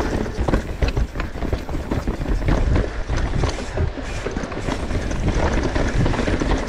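Mountain bike descending a rough, wet dirt trail: tyres rolling and crunching over dirt and roots, with many short knocks and rattles from the bike over the bumps on top of a constant rumble.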